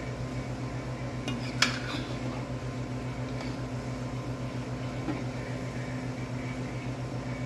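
Steady mechanical drone with a regular pulse, typical of a freeze dryer's vacuum pump running, with a single sharp clink of a utensil on cookware about a second and a half in and a few faint taps.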